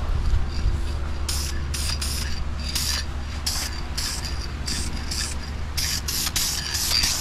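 Aerosol can of Duplicolor vinyl and fabric coating spraying in about a dozen short hissing spurts while a light coat goes onto a vinyl console. A steady low hum runs underneath.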